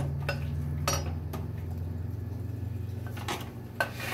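Wooden spoon stirring food in a stainless steel pot, with several short knocks of the spoon against the pot, over a steady low hum.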